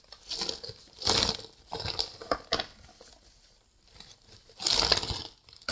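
Plastic bags crinkling and rustling as they are handled and emptied, in several bursts with pauses between, the loudest near the end.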